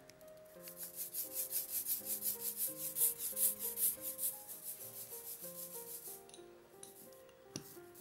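Rubber ink brayer rolled quickly back and forth through tacky printing ink, a rhythmic sticky hiss of about five strokes a second that swells in the middle and eases off near the end, over soft background music.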